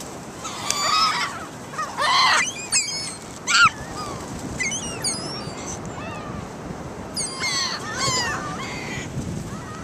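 Seagulls calling: many overlapping high, wavering cries that come in clusters, loudest about two and three and a half seconds in, over steady background noise.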